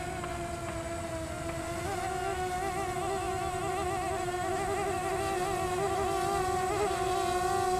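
Twin small brushless motors (2204, 2300KV) spinning 6x4.5 propellers on an RC flying wing in flight: a steady propeller buzz that wavers in pitch and level, growing a little louder as the aircraft comes closer.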